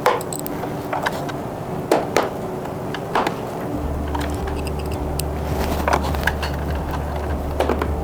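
Light, scattered clicks and taps of a screwdriver and screws as the TV stand's screws are fastened, over a steady low hum that begins about halfway through.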